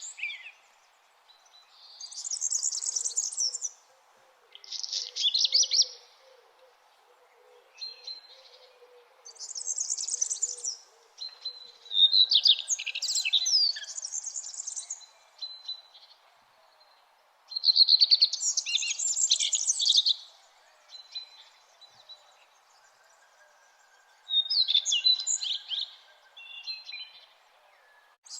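Songbirds singing in the early morning: short, busy, high-pitched song phrases every few seconds with brief pauses between them, over a faint steady background hum.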